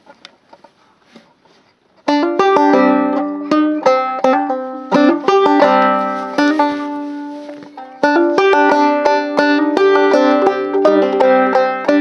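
Five-string banjo played solo in sawmill tuning, picking a tune in the Hijaz mode. The first two seconds hold only faint handling clicks; the picking starts about two seconds in, dies down just before the eighth second and starts again.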